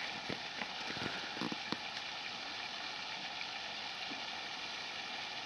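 Steady outdoor background hiss, with a few faint clicks in the first two seconds.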